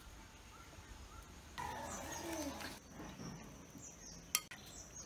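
Birds chirping in short, high calls. A sharp click comes about four seconds in.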